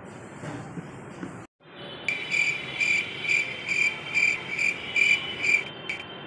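Cricket chirping: a run of short, evenly spaced high chirps, about two a second, starting about two seconds in after a stretch of quiet room hiss.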